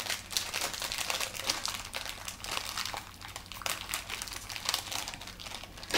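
Plastic snack packet crinkling in someone's hands as it is pulled open, a dense, irregular run of crackles.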